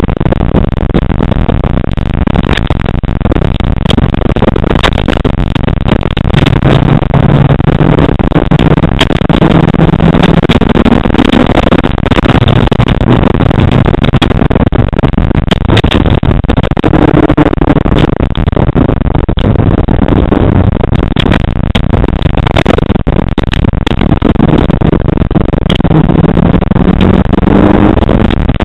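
Rally car engine heard from inside the cabin, driven hard on a loose gravel stage, its pitch rising and dropping again and again as it revs up and shifts gear. Frequent short knocks and rattles from the body and stones run under it.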